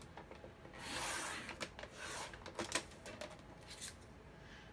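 A sheet of cardstock slid across a plastic paper trimmer: one scraping slide lasting about a second, followed by a few light clicks and taps as the card is handled.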